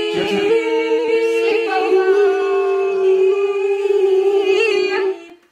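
Voices singing a long held note in two-part harmony, unaccompanied, cutting off shortly before the end.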